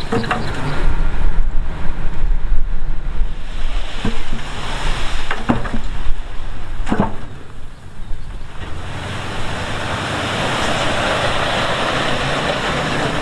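Heavy diesel earthmoving machinery running with a low rumble, three sharp knocks in the middle, and a rushing hiss that builds over the last few seconds.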